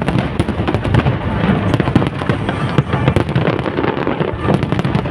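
Aerial fireworks display: a continuous, dense crackle of overlapping bangs and pops with no pauses.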